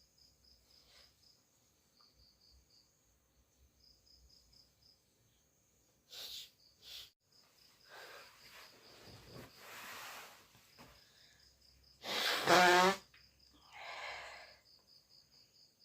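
Crickets chirping in repeated high pulsed trills. From about six seconds in there are a few quieter noisy bursts, and about twelve seconds in comes the loudest sound: a short, loud burst from a person's voice, followed by a smaller one.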